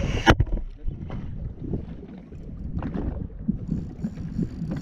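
Wind buffeting the microphone over a small fishing boat at sea, with water knocking against the hull. A loud rush of wind cuts off about a third of a second in, and a faint high whir comes in near the end.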